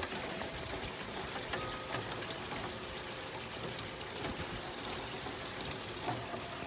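Rain falling steadily, with scattered drops ticking, while metal-tube wind chimes ring faintly now and then in the wind.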